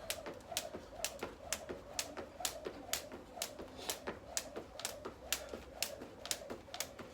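Jump rope skipping in a steady rhythm: the rope ticks against the floor about twice a second.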